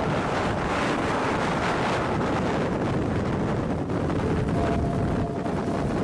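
Strong tornado wind buffeting the camera microphone: a loud, steady rushing noise.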